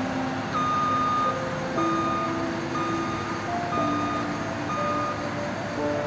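Background music: a melody of held notes, with a high note sounding about once a second.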